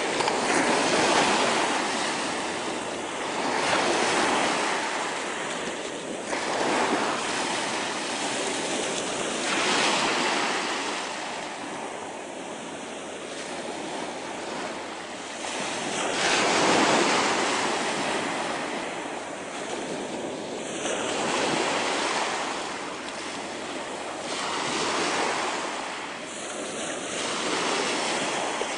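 Surf breaking on a shingle beach, the wash of the waves swelling and easing every few seconds.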